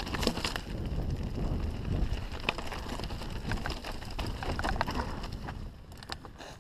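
Canyon Strive enduro mountain bike rattling down a rocky trail: tyres on loose stones and leaves, with many quick clicks and knocks from the bike, and wind buffeting the microphone. It gets a little quieter near the end.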